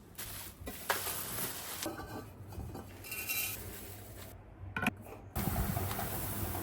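Rubbing and scraping of kitchen items being cleaned and handled, with a few sharp knocks, the clearest a little under five seconds in.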